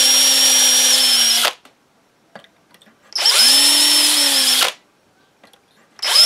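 DeWalt cordless drill running an eighth-inch bit into the wooden stock's butt through a drill guide block. The drill runs, stops about a second and a half in, runs again for about a second and a half, then starts once more near the end, as the bit is worked in and out of the hole.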